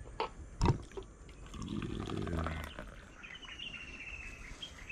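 A cow lowing once, a low call about a second long, followed by a faint high thin tone.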